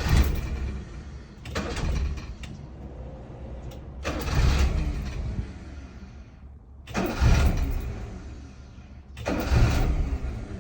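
A Honda Acty engine is cranked over and over. It catches for a second or two each time, then dies, about five times. The start-and-die comes from a faulty ignition switch whose contacts are burnt.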